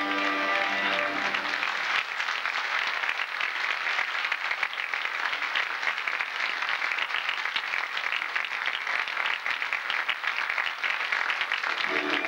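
Music of a stage dance number breaks off about two seconds in, and an audience claps for about ten seconds; music starts again near the end.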